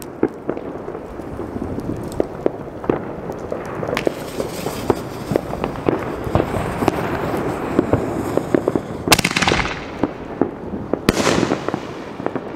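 Consumer fireworks going off: a dense run of crackling pops, then two loud bangs about two seconds apart near the end, each trailing off in a hiss.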